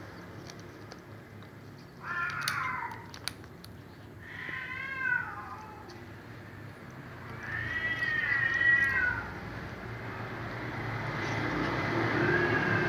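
Domestic cat meowing: four long, drawn-out meows a few seconds apart, the last still going near the end.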